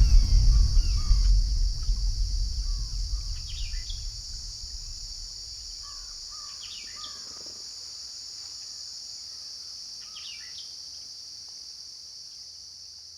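Outdoor nature ambience: a steady high insect drone with short bird chirps in small bursts every few seconds. A low rumble fades out over the first few seconds.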